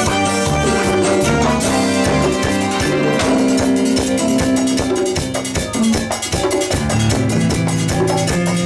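Live tropical dance band playing an instrumental passage, congas and timbales over bass and keyboard, with a steady dance beat.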